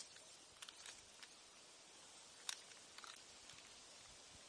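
A few faint snips and crunches as a masutake (chicken-of-the-woods) shelf mushroom is cut by hand, the sharpest about two and a half seconds in, over a quiet hiss.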